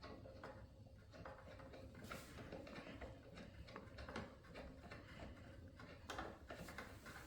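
Faint, scattered small metal clicks and taps, several of them: the blade bolt being threaded by hand onto the miter saw's arbor.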